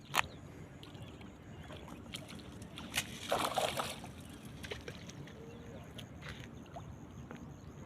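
Water sloshing, with a splash a little past three seconds in, just after a sharp knock, and another knock at the very start.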